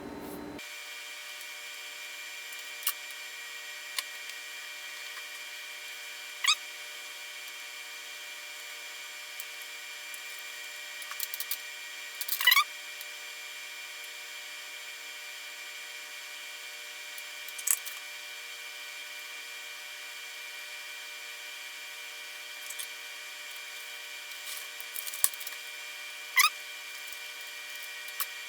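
Small hand-tool clicks and handling noises from work on a circuit board as diodes are fitted: a handful of short sharp clicks, some with a brief falling ring, spaced several seconds apart. Underneath runs a steady faint hiss with a few thin high whining tones.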